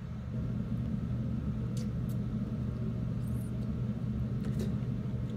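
A steady low hum, with a few faint clicks as a boiled blue crab's shell is picked apart by hand.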